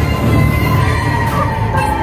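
Parade music playing loudly, with a heavy bass and long held notes that drift slowly down in pitch.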